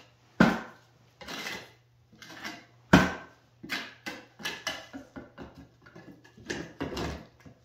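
Small hand trowel scraping and pressing Structolite base-coat plaster into wood lath in short, uneven strokes, roughing up the scratch coat. Two sharp knocks stand out, about half a second in and about three seconds in.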